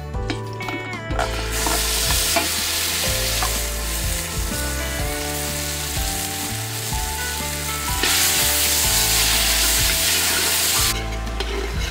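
Red spice paste sizzling and frying in hot oil in a large metal pot, starting about a second in. It grows louder from about eight seconds in as palm sugar is stirred in with a ladle. Background music plays underneath.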